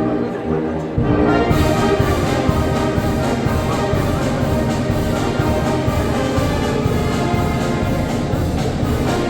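Oaxacan Mixe philharmonic brass band playing: brass and wind instruments holding chords. About a second in the full band comes in louder, with a steady percussion beat.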